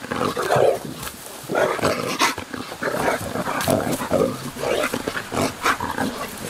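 A dog growling in play in a string of rough bursts while it tussles with a person, with scuffs and short sharp clicks among them.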